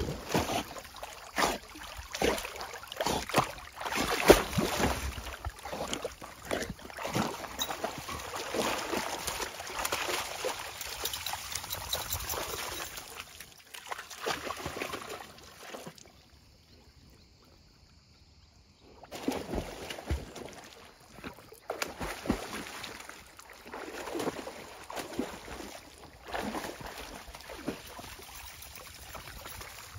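A German Shepherd splashing as it swims and wades through shallow river water, with irregular splashes and sloshing. There is a short pause of near quiet about halfway through.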